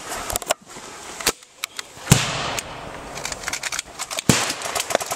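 Airsoft gunfire: scattered sharp clicks and snaps of airsoft guns firing and BBs striking, with two louder cracks about two seconds and four seconds in.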